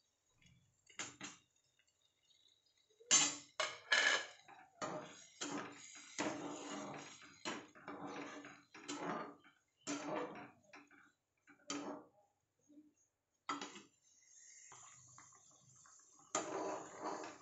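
Flat metal spatula clinking and scraping against a small steel pot while paneer cubes are stirred into curry gravy, in an uneven run of knocks and scrapes. Near the end a steady hiss comes up as the gravy bubbles.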